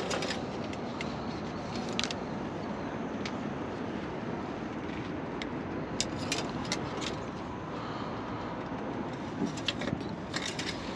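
Metal engine-oil dipstick of a semi truck being handled and wiped with a rag: scattered light clicks and scrapes, clustered about six seconds in and again near the end, over a steady background hum.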